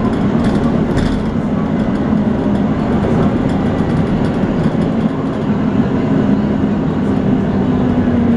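Volvo B9TL double-decker bus with its 9-litre straight-six running under way: a steady, loud drone with a whine over it that sounds like a vacuum cleaner, the 'hoovering' sound these buses are known for.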